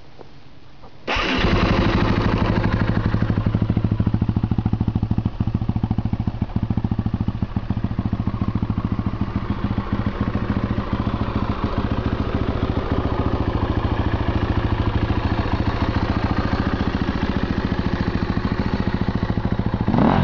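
KTM 250 EXC-F dirt bike's single-cylinder four-stroke engine starting about a second in and settling into a steady idle, then revved briefly near the end.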